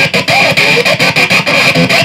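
Electric guitar music, loud and continuous, with quick runs of short, sliding notes.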